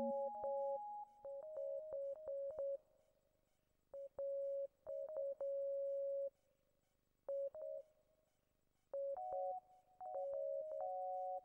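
Background music: a sparse, repetitive synthesizer melody of plain single notes that start and stop abruptly, breaking off into near silence twice along the way.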